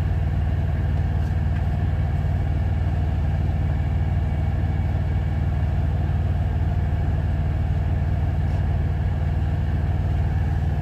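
Semi-truck diesel engine idling, a steady low drone with an even hum, heard from inside the sleeper cab.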